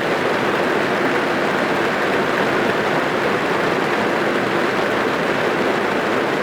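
Rain falling on a car, heard from inside the cabin: a steady, even hiss of dense drops.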